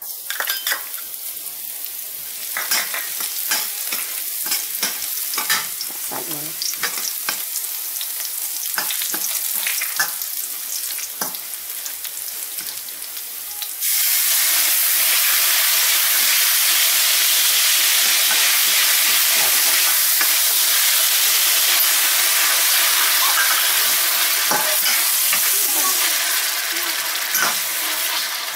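Chopped aromatics dropped into hot oil in a stainless steel wok, sizzling with scattered crackles and pops. About halfway through, more food goes in and the sizzle turns suddenly louder and more even, with a metal spatula stirring.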